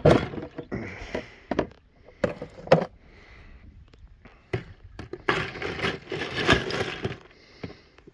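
Handling noise: several sharp knocks and clacks, then about two seconds of scraping and rustling around six seconds in.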